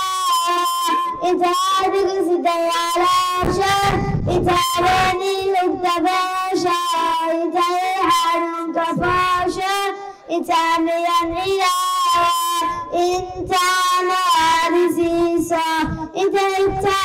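A young boy singing solo into a handheld microphone, holding long notes through the whole passage.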